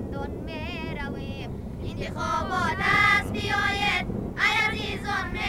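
A high-pitched voice singing long, wavering held notes in several phrases with short breaks between them, the first one faint and the later ones louder, over a steady low background noise.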